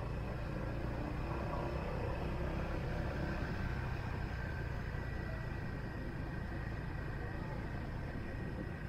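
Small motorbike engine running steadily at low speed, heard from the rider's seat as an even low hum.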